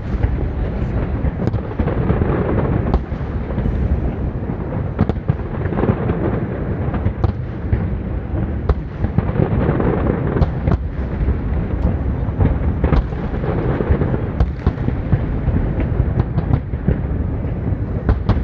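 A fireworks display: a continuous barrage of booming shell bursts under frequent sharp cracks, with no break.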